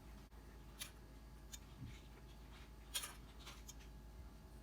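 Faint, irregular light clicks and taps of a spoon scooping thick, hot ginger-sugar candy syrup and pouring it into a silicone mold.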